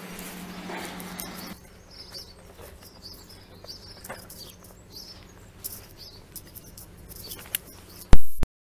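Clicking and rustling of a phone camera being handled on a moving bicycle's handlebars, with birds chirping. A steady buzz runs for the first second and a half. Near the end a sudden loud knock is followed by the sound cutting out.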